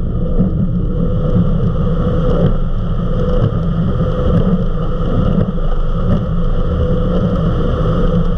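Eliminator 31 XO Speedster powerboat running at high speed, about 65 to 68 mph: a steady, loud low drone from the boat under way.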